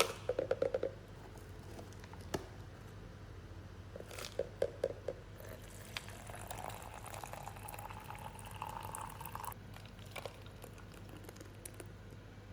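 Liquid being poured into a container, its pitch rising as the container fills, then stopping abruptly. Short runs of quick taps come just before.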